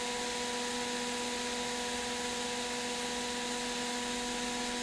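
3D printer running, a steady fan hum with a few steady whining tones, as it extrudes filament from the nozzle.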